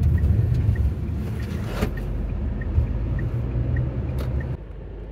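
Inside the cabin of a Tata Safari SUV on the move: a steady low rumble of engine and tyres, with the turn indicator ticking evenly, a little under twice a second, for a left turn. The rumble gets quieter near the end.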